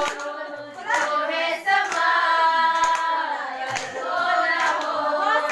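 A group of young women singing a song together, with handclaps throughout.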